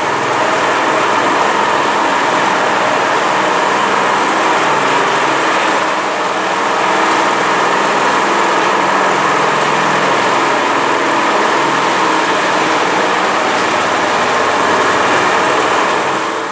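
Walk-behind concrete power trowel running steadily, its small petrol engine driving the rotating blades over a fresh concrete slab; the sound fades out near the end.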